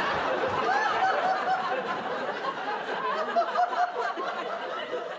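Audience laughing, many voices overlapping, slowly dying down.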